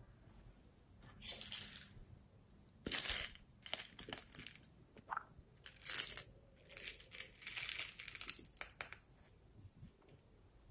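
Hands handling small plastic containers and shaking toppings, plastic pearl beads and glitter, out of them onto a bowl of slime: a string of short crackly, rustling rattles.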